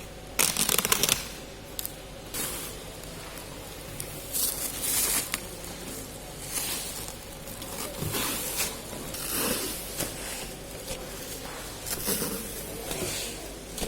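Packaging being pulled open by hand, crackling and rustling in irregular bursts, loudest in a dense run of crackles about half a second in.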